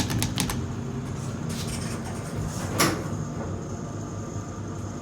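Dover hydraulic elevator's sliding doors moving, with a few clicks near the start and a single clunk about three seconds in, over a steady low hum.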